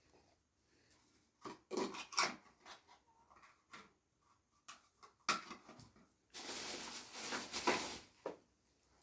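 A few knocks and clatters of household objects being handled, then an even rushing noise lasting about two seconds.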